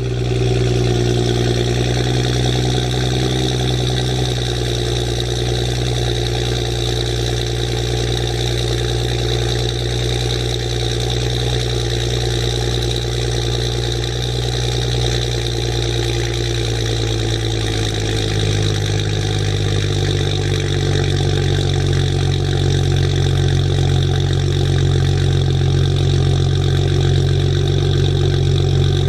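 BMW 335i's N55 turbocharged inline-six with a catless downpipe idling just after a cold start, a steady exhaust note that shifts pitch once about two-thirds of the way through as the cold idle settles.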